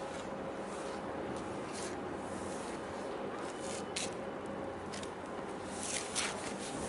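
Steady outdoor background hum with faint steady tones underneath, broken by a few short high-pitched ticks, one about four seconds in and two close together near the end.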